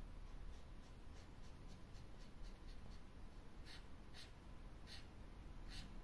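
Dual-tip brush marker colouring a small wooden cut-out: quick, faint scratchy strokes of the felt tip on the wood, a few stronger ones in the second half.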